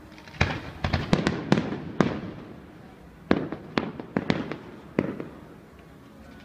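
Fireworks bursting: a rapid run of sharp bangs in the first two seconds, then a second cluster in the middle, each bang trailing off in a short echo.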